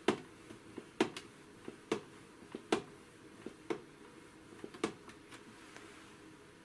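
Sharp, short clicks at uneven intervals, roughly one a second, over a steady low hum.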